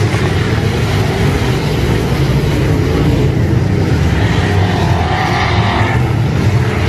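A field of IMCA Modified dirt-track race cars with their V8 engines running loud and steady as they lap the dirt oval. The engine note swells for a moment about five seconds in as cars come nearer.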